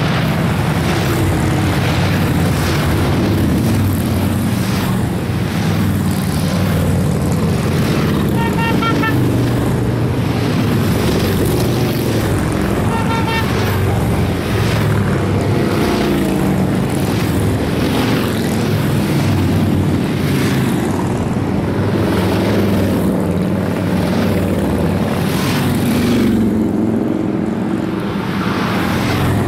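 A stream of large touring motorcycles passing one after another on a highway, their engines a continuous loud drone that swells and eases as each group goes by. Two brief high tones sound about 8 and 13 seconds in.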